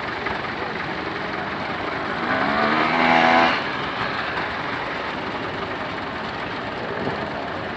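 Old tractor engines running steadily. About two seconds in, one engine revs up with a rising pitch for about a second and a half, then drops off abruptly.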